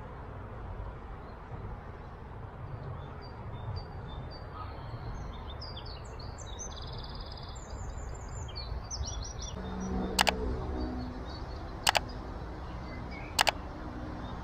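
Outdoor ambience: small songbirds chirping and trilling over a steady low rumble, then three sharp double clicks in the last few seconds.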